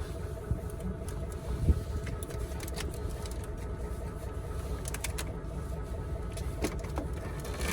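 Large truck's diesel engine idling steadily, with a few short knocks or clicks; the sharpest comes about two seconds in.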